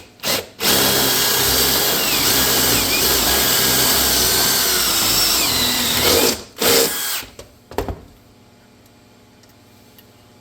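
Power drill boring out a hole with a step bit: one steady drilling run of about five and a half seconds, then a short second burst.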